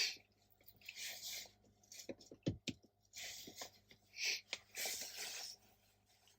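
Faint rustling and handling noises in short bursts, with a few light clicks just over two seconds in.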